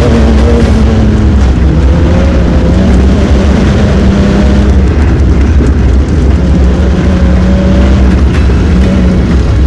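Off-road race buggy's engine running hard at speed, heard from an onboard camera, with a heavy low rumble and steady engine tones.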